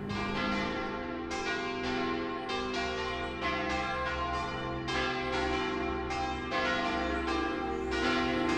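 Church bells pealing: strikes of several pitches, about two to three a second, each left ringing into the next.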